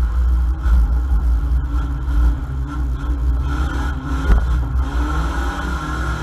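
Ford Mondeo race car's engine running under load, heard from inside the stripped-out cabin as a deep, steady rumble. A single sharp thump stands out about four seconds in.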